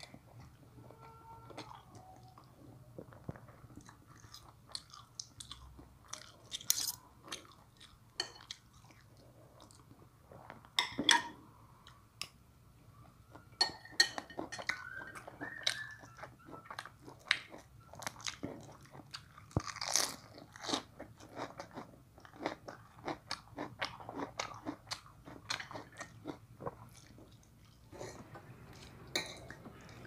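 A person chewing and crunching mouthfuls of food close to the microphone, biting into crisp lettuce, with a spoon and fork clicking against plates between bites.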